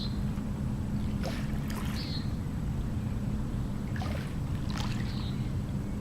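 Riverside ambience: a steady low hum, with short splashing or knocking sounds every second or so and a few brief high chirps.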